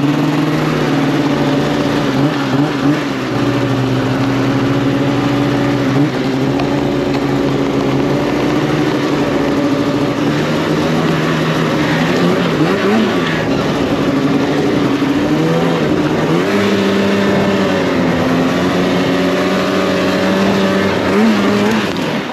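2019 Polaris RMK 600 snowmobile's two-stroke twin engine running under throttle while riding through snow. It holds a steady pitch for long stretches, with several dips and rises in revs in the second half.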